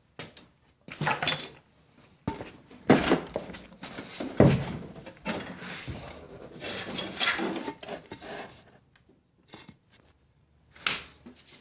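Metal hand tools and small clamps clinking and clattering as they are picked up and handled, a run of irregular knocks and scrapes.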